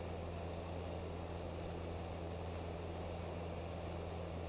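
Steady low drone of a Piper Cherokee's engine and cabin in level flight, picked up through the cockpit audio. A faint high rising chirp repeats about once a second.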